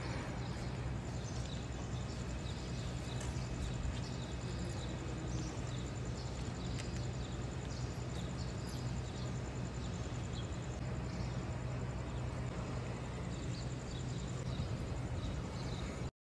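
Quiet outdoor ambience with a steady low hum and scattered short, high chirps. It cuts off abruptly just before the end.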